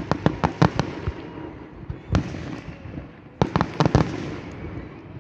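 Aerial fireworks going off: a quick string of sharp cracks in the first second, a single bang about two seconds in, then another cluster of cracks between three and four seconds in.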